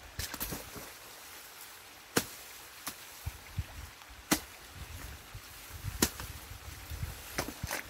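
Sticks and branches of a beaver dam cracking and snapping as it is torn apart by hand, about six sharp cracks spread irregularly through several seconds.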